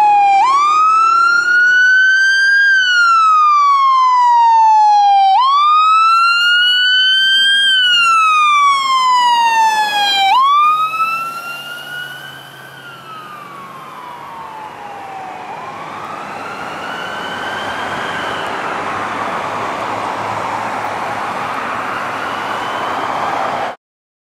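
Emergency vehicle's wail siren sweeping slowly up and down, about one cycle every five seconds, loud and close. About ten seconds in it drops suddenly and carries on fainter over a rushing noise as the vehicle moves away, then cuts off abruptly near the end.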